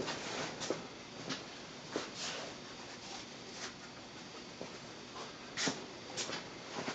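Faint handling noises: scattered light clicks and knocks with a brief louder rustle a little over five seconds in, over a low steady hiss. The belt grinder's motor is not running.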